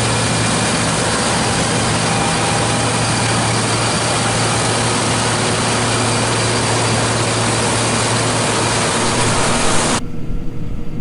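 John Deere T670i combine harvester running steadily while cutting wheat: a constant mechanical drone with a low hum under it. About ten seconds in it changes abruptly to a quieter, thinner sound.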